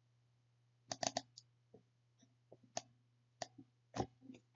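Scattered sharp clicks of a computer mouse and keyboard: a quick cluster of three about a second in, then single clicks every half second to a second, over a faint steady low hum.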